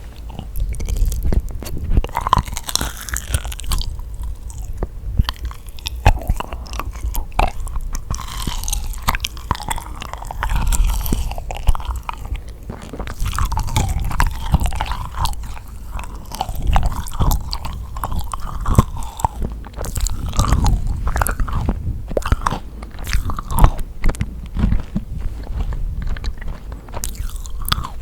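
Close-miked chewing and biting of yakgwa, Korean deep-fried honey cookies: sticky, wet mouth sounds with many small clicks and smacks, without pause.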